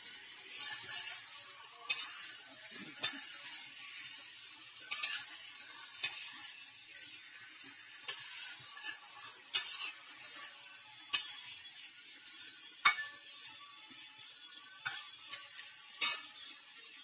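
A flat metal spatula scrapes and knocks against a wok-shaped pan, stirring spiced chicken and potatoes that sizzle in mustard oil. About a dozen sharp, irregular scrapes sound over a steady low sizzle: this is the kosha stage, the slow, fairly dry frying of the masala-coated chicken.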